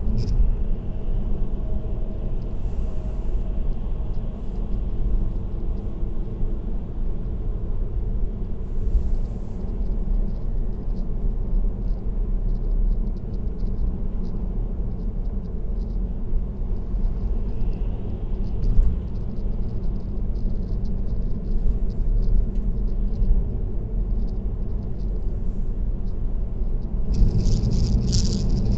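Car road noise at highway speed: a steady low tyre-and-engine rumble with light, scattered rattling clicks that grow thicker near the end.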